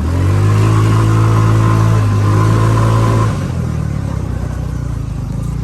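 200cc off-road go-kart engine opened up sharply, holding a steady loud note for about three seconds, then easing back off the throttle to a lower running sound.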